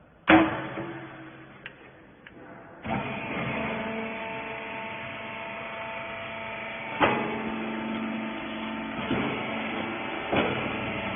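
Wiper baler machine: one sharp metal bang, then about three seconds in its hydraulic pump motor starts and runs steadily with a hum and whine, with a few clanks over it.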